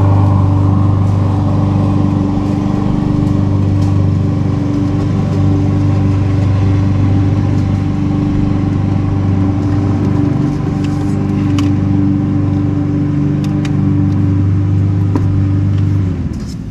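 An engine running at a steady speed close by, with a firm low hum; it shuts off a little before the end.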